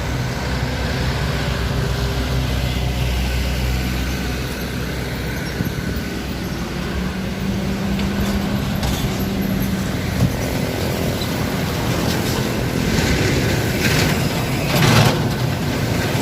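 Heavy truck engine running at low revs, a steady low drone. Several short bursts of hiss come near the end.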